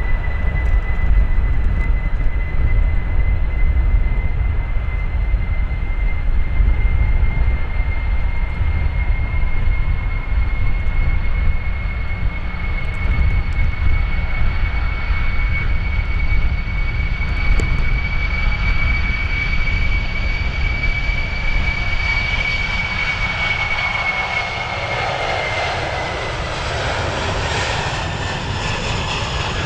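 Boeing 747-400 freighter's four jet engines at takeoff power during the takeoff roll: a steady roar with a high whine that creeps up in pitch. About three quarters of the way through, the whine slides down and the roar grows fuller as the jet passes and rotates.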